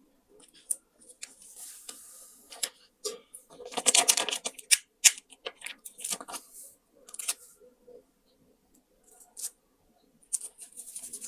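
Paper being handled in crafting: scattered light taps and clicks, with a dense burst of crisp rustling and crinkling about four seconds in.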